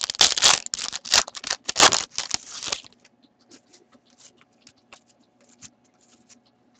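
Foil hockey card pack wrapper crinkling and tearing as the cards are pulled out, for the first three seconds or so. After that, only faint soft clicks of cards being slid and shuffled in the hands.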